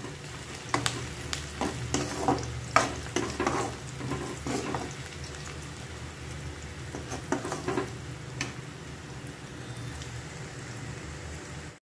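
Sliced onions, garlic and cashews sizzling as they fry in oil in an aluminium kadhai, the onions being browned. A metal spoon scrapes and clinks against the pan now and then as they are stirred, most often in the first half and again a little after the middle.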